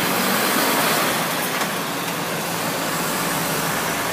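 Road traffic going by: a car drives past and a lorry follows, a steady noise of engines and tyres.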